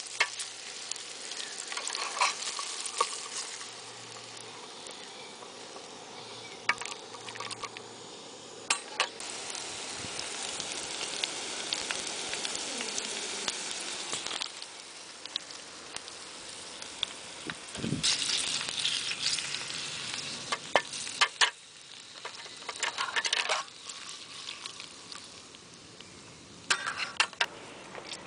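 Sliced onion, red pepper and garlic sizzling in a stainless steel mess tin on a camp stove, with a metal spoon stirring and scraping against the tin. The sizzling grows louder for a few seconds about two-thirds of the way through, as sliced lamb goes into the pan.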